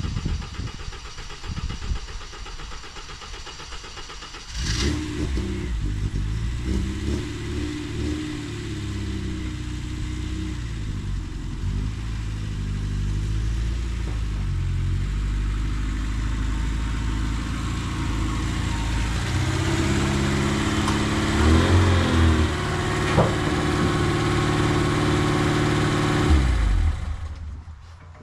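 Lada Niva engine starting about five seconds in, then running and revving as the car is driven over the lawn, with changes in engine pitch in the second half; it is switched off shortly before the end.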